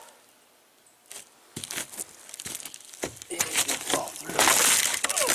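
Crinkling and scraping noises with no saw running: quiet for about the first second, then scattered crackles that thicken into a dense, loud rustle near the end.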